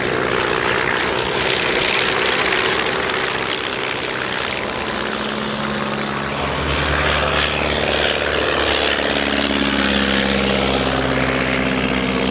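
Ryan PT-22's Kinner five-cylinder radial engine and propeller running steadily in a low fly-by. Its note drops as the aircraft passes overhead about halfway through.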